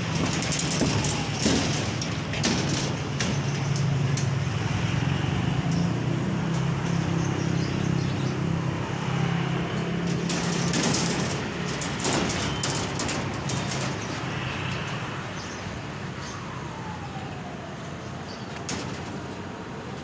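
Steady low engine hum with scattered clicks and knocks; the hum fades after about fourteen seconds.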